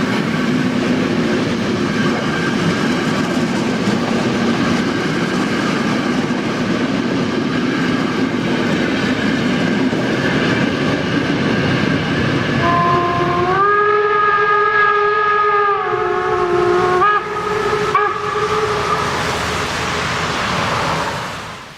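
Steam train hauled by 2-10-0 class 52 locomotive 52 1360 running along the track with wheels clattering on the rails. Partway through, the locomotive's steam whistle sounds one long blast that rises in pitch as it opens and drops as it closes, followed by two short toots.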